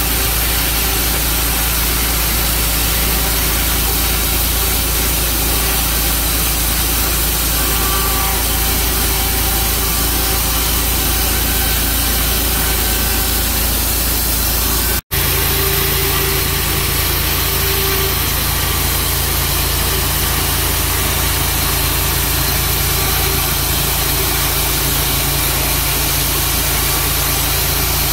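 Sawmill engine running steadily with a constant hum. The sound cuts out for an instant about halfway through, then carries on at a slightly different pitch.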